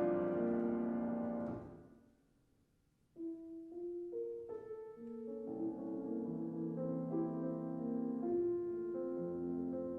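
Piano playing classical music: a loud held chord dies away over the first two seconds, a second of silence follows, then a soft, slow passage of sustained notes begins.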